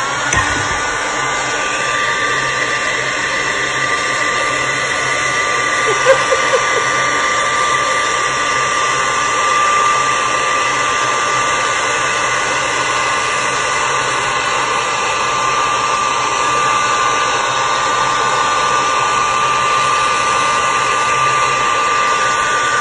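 Handheld blow dryer running steadily at high power, a loud rush of air with a steady whine. There is a brief louder sound about six seconds in.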